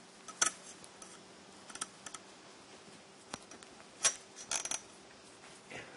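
Knitting needles clicking and tapping against each other in a handful of irregular, sharp clicks as stitches are knitted two together to shape a sweater neckline.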